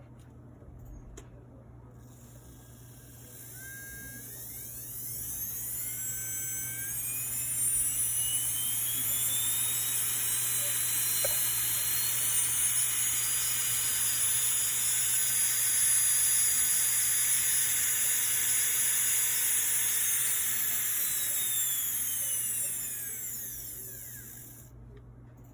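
Saeyang Marathon 3 Champion nail drill handpiece (H37L1) running up smoothly to its top speed of 35,000 rpm. Its whine climbs in pitch over several seconds, holds high and steady for about twelve seconds, then falls away and stops near the end.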